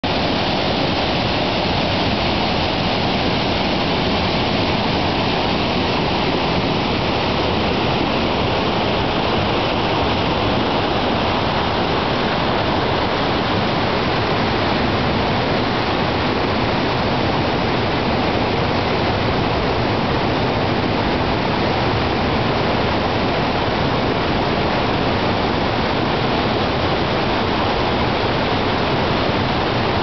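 Mountain stream rushing over rocks in rapids: a steady, loud rush of white water that does not let up.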